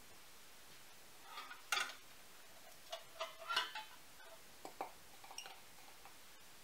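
Scattered clinks and clanks of a metal loaf pan being handled on a metal rack, a few separate knocks with the loudest cluster in the middle.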